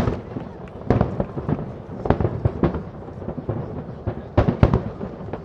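Aerial fireworks shells bursting in an irregular, rapid series of sharp booms and cracks, with a dense cluster of bursts a little past four seconds in.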